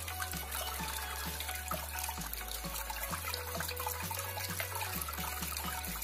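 Water falling in thin streams from a tabletop rain-curtain fountain into its basin, a steady trickling and splashing. Soft background music with a slow bass line runs under it.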